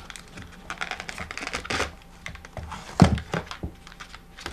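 Cardboard phone-box packaging being handled: the inner tray and sleeve are worked out of the box, giving a run of rustles, scrapes and light taps, with one sharper knock about three seconds in.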